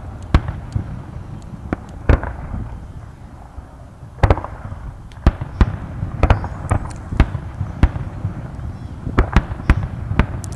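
Fireworks display: aerial shells bursting overhead, more than a dozen sharp bangs and cracks at uneven intervals over a low rumble.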